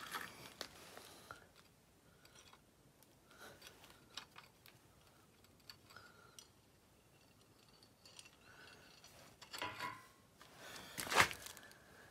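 Small clicks and handling noises from a miniature metal model cannon being loaded by hand, with a few brief faint squeaks and one sharp clack about eleven seconds in.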